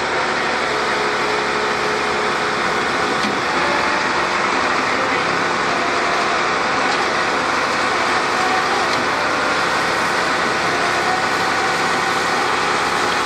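Dodge pickup truck's engine running under steady throttle as its rear wheels spin in soft mud, trying to drive out of being stuck.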